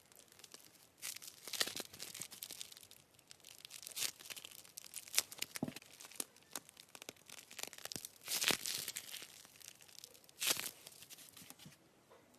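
Slime being pressed and pulled by hand, giving a run of irregular crackles and small pops with a few louder bursts.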